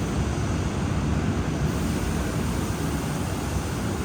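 Steady rushing noise with a low rumble: the background din of a heavy-machinery factory hall.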